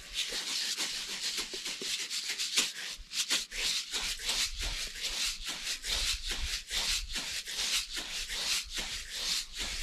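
Tannerite's granular ammonium-nitrate beads and catalyst powder rattling and swishing inside a plastic jug as it is shaken to mix the two parts, with many quick shakes a second.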